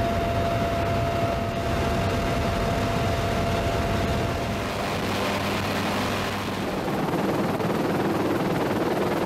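UH-1Y Huey helicopter in flight: steady rotor and turbine engine noise, with a faint steady whine that stops about halfway through.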